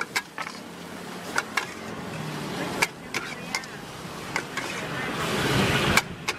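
Metal spatula clanking and scraping against a steel wok as wide rice noodles and vegetables are stir-fried, in irregular sharp strikes over a steady hiss of frying.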